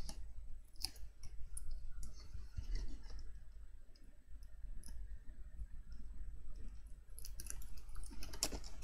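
Scattered light clicks and rustles of fingers handling small card strap pieces and self-adhesive Velcro dots, with a denser run of clicks near the end.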